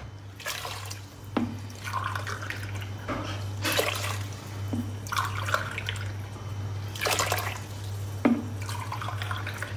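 Water poured from a drinking glass into a pot of green lentils, several glassfuls one after another, each pour splashing onto the lentils.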